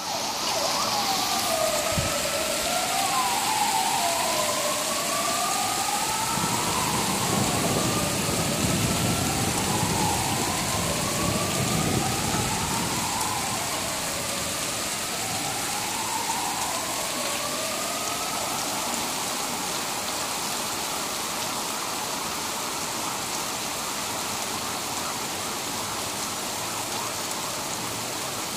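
Heavy downpour hissing steadily. Over it an emergency vehicle's siren wails up and down, rising and falling about every three seconds, then fades out about two-thirds of the way through.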